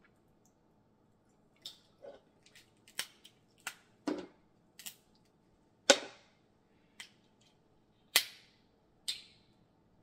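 Snow crab leg shells cracking and snapping as they are broken open by hand: about ten sharp, irregular cracks, the loudest about six and eight seconds in.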